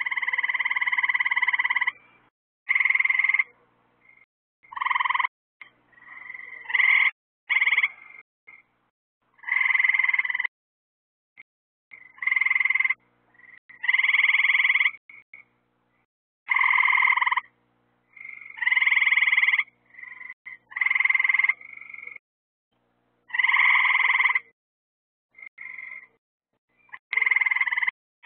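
Frogs calling: a repeated trilled call about a second long, sounding every two to three seconds, with a few shorter chirps in between.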